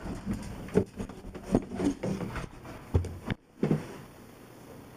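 Irregular thumps and knocks, about half a dozen, from footsteps and handling of a handheld camera on the move; from about four seconds in it goes quieter, leaving only a low steady background.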